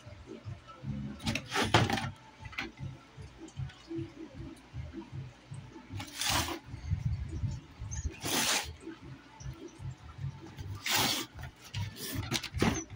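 Cardboard box being handled and turned on a tabletop: several short scraping rustles over low, irregular handling thumps.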